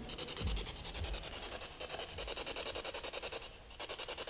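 Spirit box (ghost box radio) sweeping through stations: choppy static pulsing several times a second, with a brief break about three and a half seconds in.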